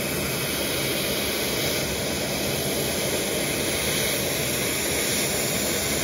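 Ridgid shop vacuum running steadily, its hard plastic nozzle drawn along a heat pump's condenser coil fins, sucking matted dirt and debris off the coil.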